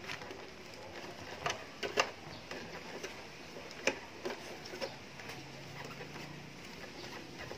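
A cloth rag rubbing over the plastic underside of an Epson L120 printer, with a few scattered light clicks and knocks of hand and cloth against the plastic housing.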